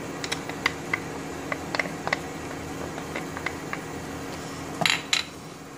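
Wooden spatula scraping and tapping ghee out of a plastic tub into a pan: scattered light clicks, then two louder knocks near the end, over a steady low hum.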